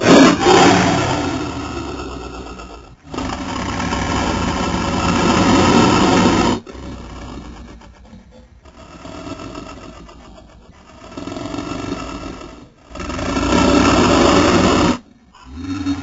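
A series of separate monster roars and growls for a custom T-Rex/Godzilla hybrid creature, made by layering lion, tiger, leopard and dinosaur roar recordings. Each call cuts off abruptly; the loud roars are at the start and near the end, with quieter, rough growls in the middle.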